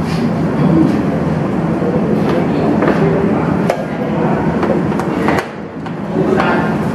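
Sharp, irregular knocks of makruk (Thai chess) pieces being put down on the board, about eight over the few seconds, over a steady murmur of voices.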